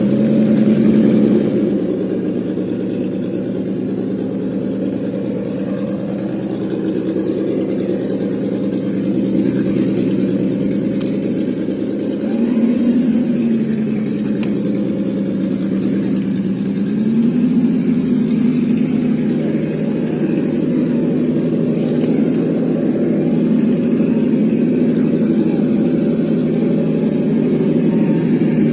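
Simulated engine sound from the ESS-Dual sound module's speaker on a Traxxas TRX-4 Jeep Rubicon RC crawler, idling steadily. The revs rise briefly about twelve seconds in, then rise again a few seconds later and hold a little higher.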